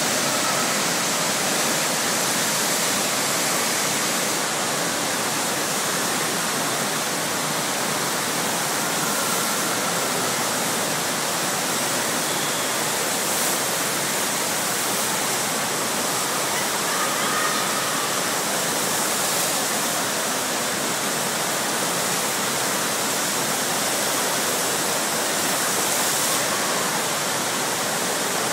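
Water of a FlowRider surf ride's pumped sheet wave rushing steadily over the ride surface.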